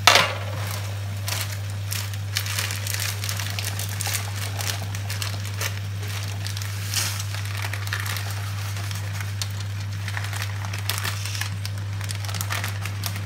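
Water at a rolling boil in a large stainless steel pot, bubbling with an irregular crackle, over a steady low hum. A sharp click right at the start.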